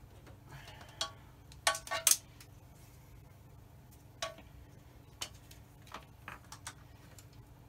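Scattered sharp clicks and light clacks of test leads and plugs being handled and connected. The loudest is a quick cluster of three about two seconds in, and they sit over a faint low steady hum.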